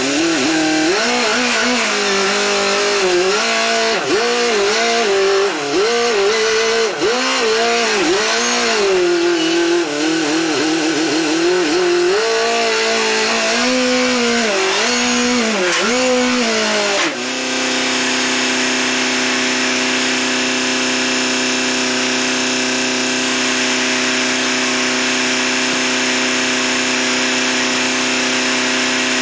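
Telehandler engine revving up and down over and over, then dropping suddenly to a steady idle about seventeen seconds in.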